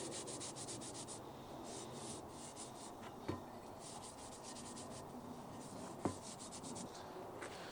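A wire brush scrubbed rapidly back and forth over the rusted surface of a cast iron pan, scraping off rust in several quick bursts with short pauses between. A couple of light knocks of the pan are heard in between.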